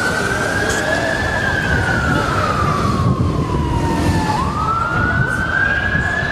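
Police siren wailing: its pitch rises, falls slowly for about three seconds, then sweeps up again about four seconds in, over steady crowd and street noise.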